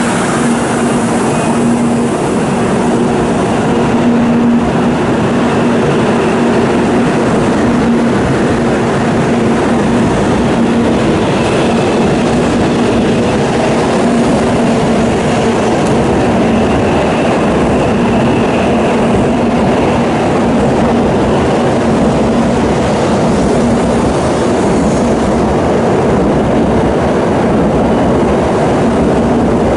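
N700A-series Tokaido Shinkansen train at the platform, making a loud, steady running noise with a constant low hum.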